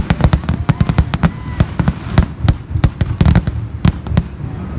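Fireworks display going off in a rapid barrage: a dense run of sharp bangs and crackling reports, several a second, without a break.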